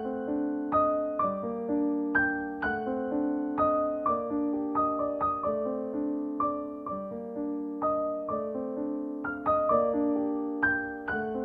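Gentle background piano music: single notes and chords struck in a steady, unhurried rhythm, each ringing and dying away.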